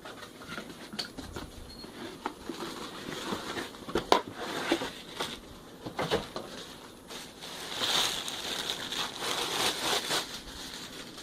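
Unboxing a pet water fountain: a cardboard box being opened and parts lifted out of their packaging, with rustling and crinkling and scattered light knocks and clicks. A longer stretch of rustling comes near the end.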